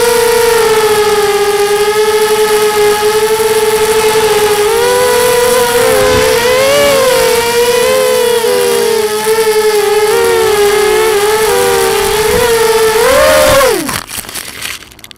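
QAV250 quadcopter's brushless motors and propellers whining loudly, the pitch wavering up and down with the throttle. Near the end the whine rises once more, then falls away sharply and stops with a few scrapes as the quad crashes into the grass.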